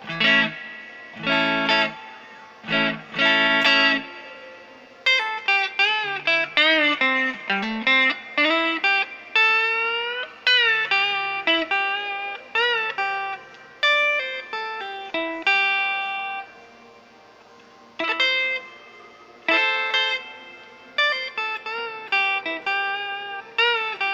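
Stratocaster-style electric guitar on its neck pickup alone, a Wilkinson Vintage Voice Alnico V single coil. It opens with four strummed chords, then plays a lead line of single notes with string bends and vibrato, and ends with short chords and riffs.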